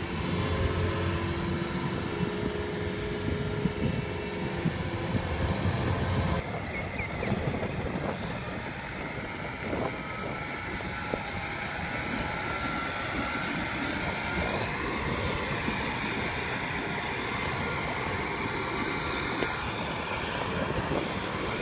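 Kubota combine harvester's diesel engine running steadily as it crawls through a flooded paddy. About six seconds in the sound changes abruptly to a tractor's diesel engine running under load as it pulls a rotary tiller through the wet paddy.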